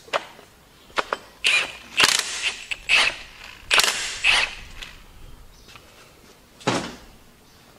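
A wrench working a fastener on the hub of a wood chipper's twin-disc clutch: a couple of clicks, then about six short, noisy bursts spread over several seconds as the hub is worked loose.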